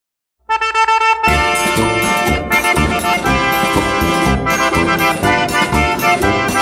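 Silence for about half a second, then an accordion enters on a held chord, and a full forró band with percussion joins about a second in: the start of an accordion-led instrumental forró tune.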